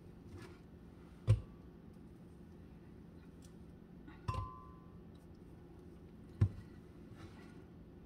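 Metal ice cream scoop clinking against a glass blender jar as ice cream is knocked off into it: three knocks, about one, four and six seconds in, the middle one ringing briefly.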